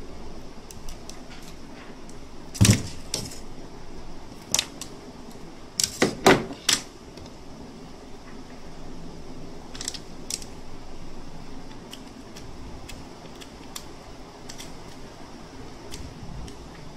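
Layers of a torn-open lithium-ion phone battery pouch cell handled by hand: stiff foil and electrode sheets crinkle and clack. There are sharp clacks, one strong one about three seconds in and a quick run of four about six seconds in, with lighter ticks later.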